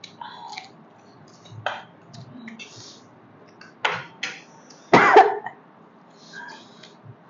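A person coughing: two short, sharp coughs a little before four seconds in, then a louder, longer cough about five seconds in, among quieter short mouth and eating sounds.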